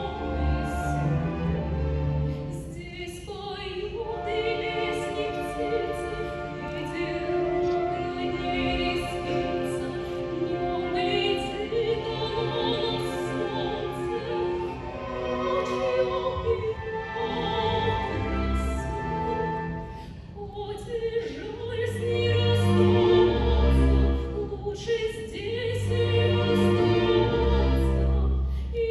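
A girl's voice singing in classical academic style over a symphony orchestra, with sustained held notes and deep orchestral bass swelling at several points.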